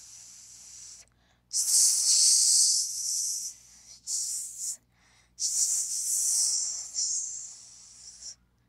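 A person hissing through the mouth in four loud bursts with short gaps, a mouth-made sound for the house burning.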